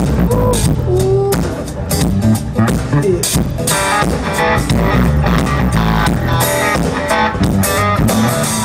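Loud rock music: guitar over a steady drum kit beat, with other instruments in the mix.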